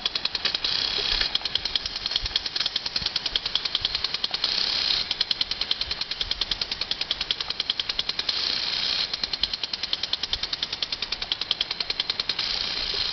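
Impact lawn sprinkler ticking rapidly and evenly as its water jet sprays, with a short stretch of steadier spray hiss about every four seconds.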